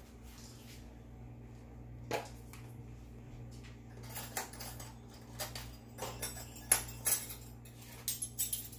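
Kitchen utensils and containers being handled: a single knock about two seconds in, then a run of sharp clicks and light metallic jingles from about four seconds on, over a low steady hum.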